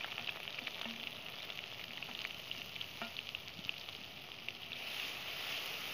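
Hot oil sizzling and crackling in a steel kadai, with onion, dried-chilli, garlic and ginger pastes just added over whole spices. Many small pops ride on the hiss, which grows a little louder and steadier near the end.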